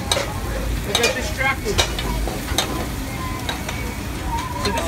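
Rack of venison sizzling in a sauté pan on a gas range as it is spoon-basted, a metal spoon clinking against the pan again and again over the steady frying.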